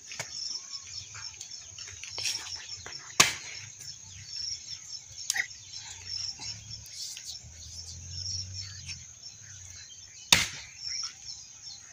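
Axe splitting firewood: two loud, sharp strikes about seven seconds apart, with lighter knocks between. Insects chirp steadily in the background.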